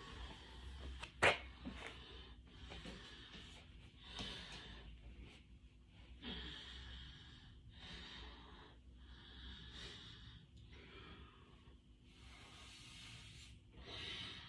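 A person breathing audibly in and out, a puff every second or two, from the effort of single-leg calf raises on an incline board. A single sharp click about a second in is the loudest sound.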